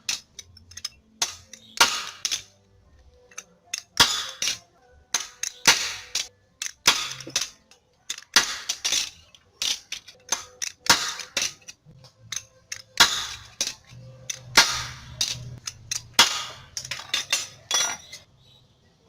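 Hammer blows on sheet steel, coming irregularly in clusters of sharp strikes, as a small patch panel is shaped by hand; the hammering stops near the end.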